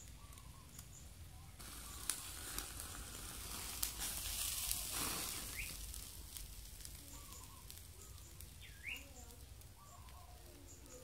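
Marinated meat sizzling in a wire grill basket over a small clay stove's fire, with sharp crackles and pops; the hiss swells for a few seconds in the middle, while flames flare under the basket, then settles.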